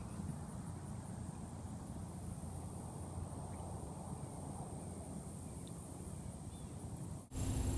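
Steady low rumble of wind on the camera microphone outdoors, with a few faint, short high chirps.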